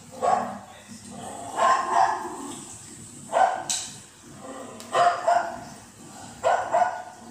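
A dog barking five times, evenly spaced about one and a half seconds apart.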